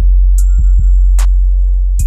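Background music with a heavy bass and a steady electronic drum beat, a sharp snare-like hit about every 0.8 seconds.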